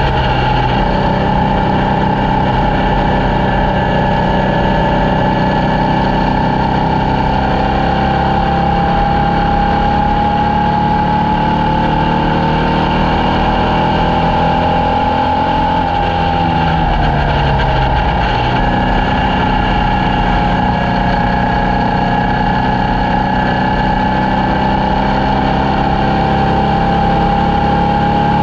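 Formula Vee race car's air-cooled Volkswagen flat-four engine running hard with a steady note that dips about 16 seconds in, then climbs back up over the next several seconds.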